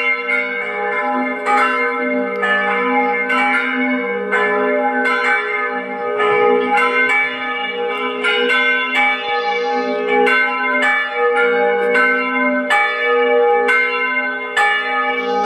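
Church bells pealing: several bells struck in quick succession, about two strikes a second, each ringing on into the next.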